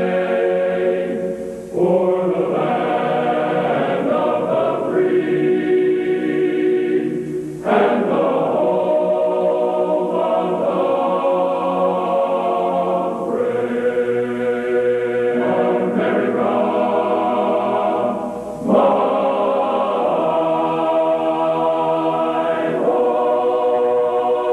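Slow choral music: a choir holding long, sustained chords that change every few seconds.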